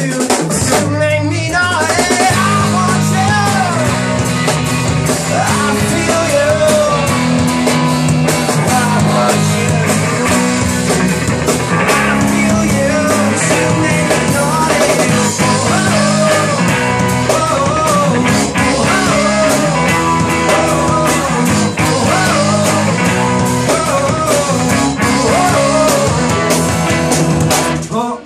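Live rock band playing a song: electric guitars, bass and drum kit, with a singing voice over them. The music comes to a stop at the very end.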